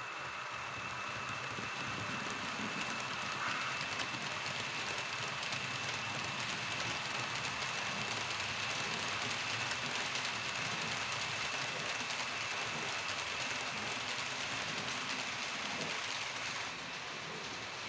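H0-scale model electric locomotive hauling a rake of passenger coaches along the layout's track: a steady running noise of motor and wheels on the rails, with a high whine. It grows louder as the train passes close by and drops back about seventeen seconds in.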